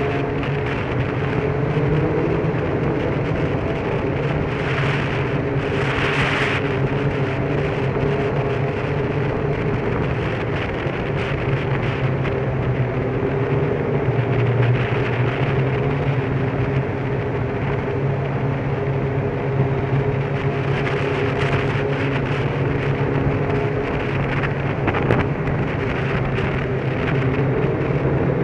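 Motorcycle engine running at a steady, unchanging pitch while cruising, over a constant rush of wind and road noise. There are short swells of hissing noise about five and six seconds in, and again about twenty-one seconds in.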